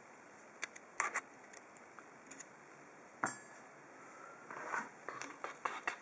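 Light metallic clicks and clinks as a gutted lock cylinder and its small parts are handled, a few scattered taps with one short ring about three seconds in, then soft handling noise near the end.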